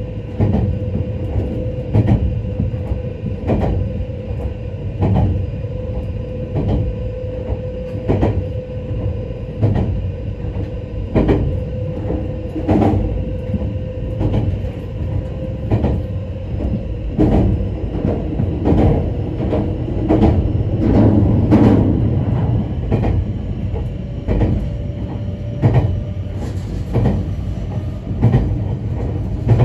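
Former Odakyu HiSE Romancecar electric train running at speed, heard from inside the passenger cabin. A steady rumble with a constant hum carries a regular clack of wheels over rail joints, a little more than one a second.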